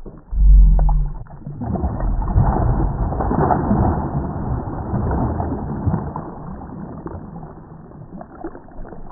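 Water splashing and churning as a hooked chain pickerel thrashes at the surface, heard slowed down and deep, with a short low thump about half a second in.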